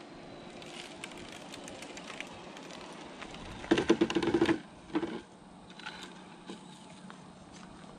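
Stock DR10 RC drag car: a few light clicks and crackles, then a brief loud buzz from its electric drivetrain about halfway through, with a shorter second buzz a second later.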